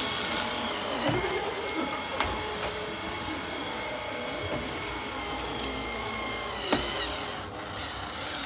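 Cordless stick vacuum cleaner running with a steady high whine, with a few sharp clicks and knocks, the loudest about three-quarters of the way through.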